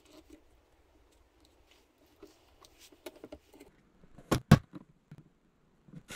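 Creative Memories 12-inch paper trimmer cutting a strip of cardstock: faint scraping and ticking as the cutting head slides along the rail, then two sharp clicks a little over four seconds in.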